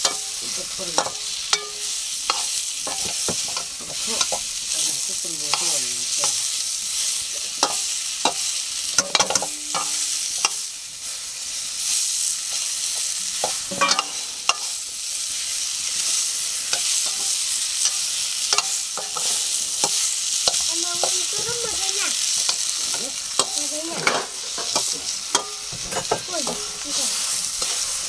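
Food sizzling and frying in a wok, with a utensil repeatedly knocking and scraping against the pan as it is stirred.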